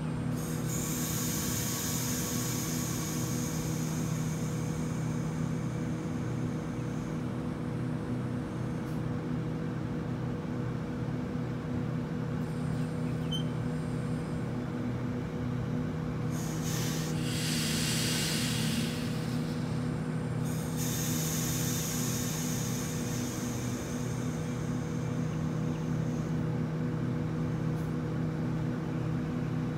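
Standing Waratah electric train with its onboard equipment humming steadily. Three long stretches of air hissing lay over the hum: one from the start to about seven seconds in, a louder, fuller one from about sixteen to twenty seconds in, and another right after it until about twenty-six seconds in.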